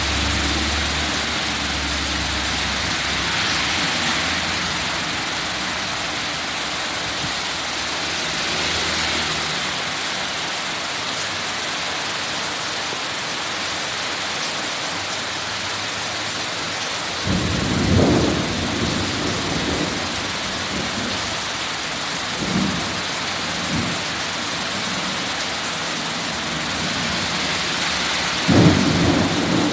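Heavy rain pouring down steadily. A low rumble of thunder rises about two-thirds of the way through, with another near the end.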